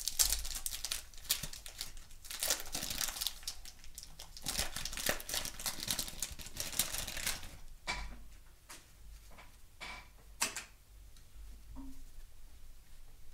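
Wax paper wrapper of a baseball card pack crinkling and tearing as it is ripped open and peeled back, for about seven seconds. Then a few sparse light taps and rustles as the stack of cards is handled.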